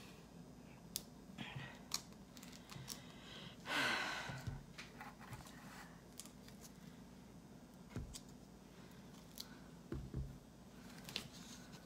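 Faint handling of plastic iced-drink cups: scattered light clicks and taps of lids and straws, and dull knocks as the cups are moved and set down about eight and ten seconds in. A short breathy rush about four seconds in is the loudest sound.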